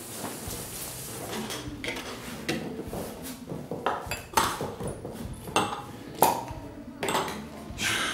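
Kitchen clatter: glass bottles, dishes and utensils being handled and set down, giving a string of sharp clinks and knocks, some ringing briefly.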